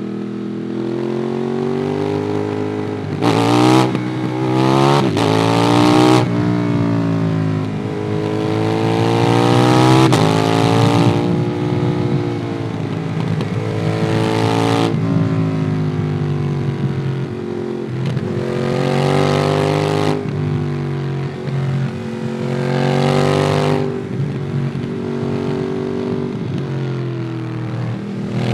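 Ducati Monster 821's 821 cc L-twin engine through a QD Twin Gunshot aftermarket exhaust, heard from the rider's backpack while riding: a few seconds in it accelerates through several quick gear changes, then repeatedly winds up in pitch and rolls off again.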